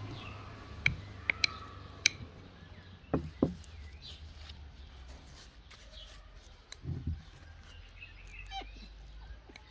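Wooden stick knocking and tapping against a glass jar as grape leaves are tamped down tight, a few sharp knocks in the first two seconds. Two short squeaks sliding down in pitch follow near the middle, with birds chirping faintly throughout.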